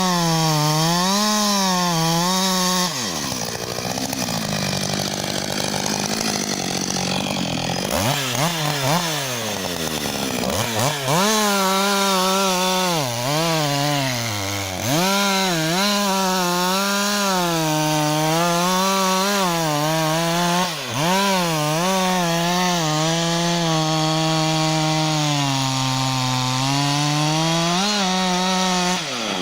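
Two-stroke chainsaw running at high revs, its pitch wavering up and down as the chain works through wood. About three seconds in it drops back toward idle, then revs up again twice and carries on cutting.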